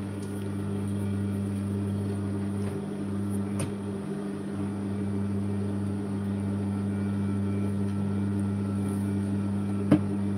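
The motor of a Ninette industrial sewing machine, switched on and running idle with the pedal not pressed, giving a steady low hum. A single sharp click near the end.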